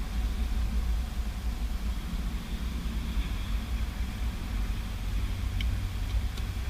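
Steady low rumble with a faint hiss, and two short sharp clicks near the end, as from a hand tool working the shifter's mounting bolts.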